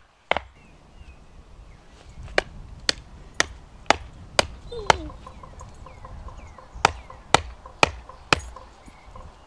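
Wood being chopped with sharp, regular blows about half a second apart. One blow comes near the start, then a run of six, a short pause, and four more.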